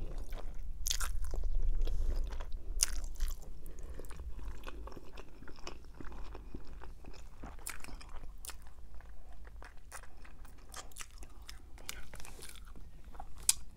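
Close-miked chewing of a mouthful of fettuccine Alfredo noodles, with many small wet mouth clicks and smacks throughout.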